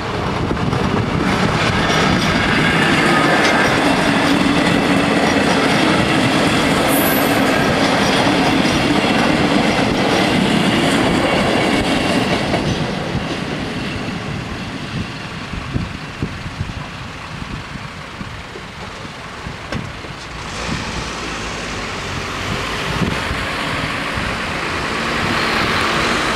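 Passenger train running past on the line, with wheels rumbling and clattering on the rails. It is loud for about the first twelve seconds, then fades away. Near the end, road vehicles start up and move off.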